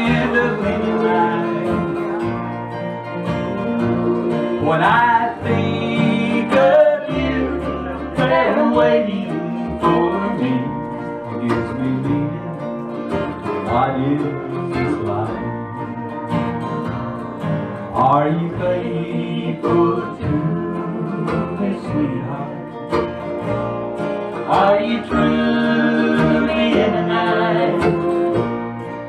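Live country band playing a song on acoustic guitar, electric guitar and upright bass, with sliding notes here and there.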